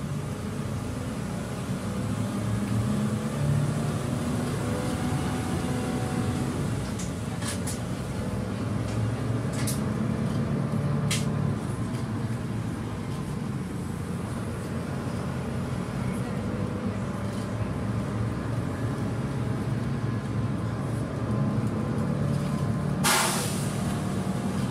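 City bus interior on the move: a steady low engine and road drone with a few sharp rattling clicks. About 23 seconds in, a short, loud hiss of compressed air from the bus's pneumatic system cuts through.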